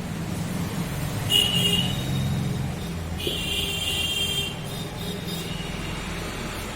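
Low, steady rumble like road traffic, with two stretches of high-pitched tones: a short one about a second and a half in and a longer one from about three to four and a half seconds.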